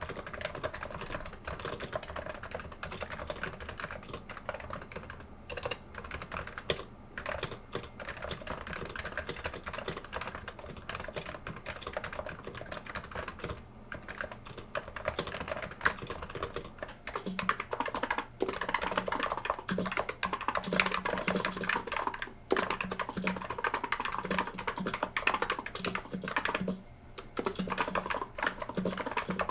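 Continuous typing on a silenced Topre 55g keyboard (electrostatic capacitive rubber-dome switches), picked up by a camera's built-in microphone. About 17 seconds in, the typing changes to a Niz 55g keyboard, which is louder, with a deeper thock under each keystroke; the uploader finds the Niz scratchier, and says this shows in its sound.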